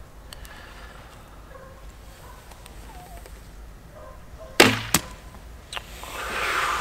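A Black Hunter 40-pound longbow is shot: a sharp, loud thwack of the string about two-thirds of the way in as the arrow is loosed, with the string slapping the archer's sleeve, then a second sharp knock a moment later.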